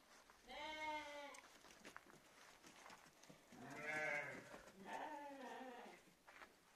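Dman-breed sheep bleating three times: one bleat about half a second in, then two more in quick succession near the middle.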